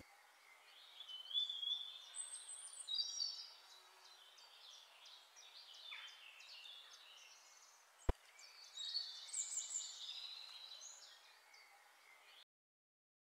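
Faint chirping and twittering of small birds, coming in short bunches, with one sharp click about eight seconds in; the sound cuts off suddenly near the end.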